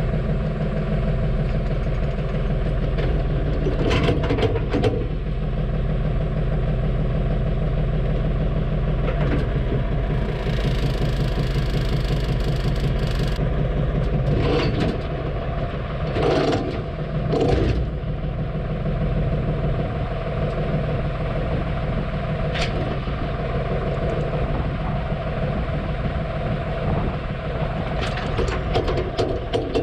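Valmet 505 tractor engine running steadily, with several short knocks over it.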